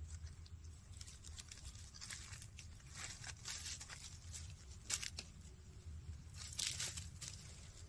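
Dry fallen leaves and twigs crackling and rustling under a month-old puppy's paws and nose as it walks and sniffs through them. The crackles come in irregular bursts, with a sharp crack about five seconds in and a louder cluster just after.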